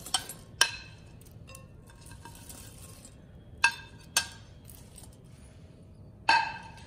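Metal spoon and plate clinking against a glass bowl as fried potato pieces are pushed off the plate into it: about five sharp, ringing clinks spread through, with quiet between.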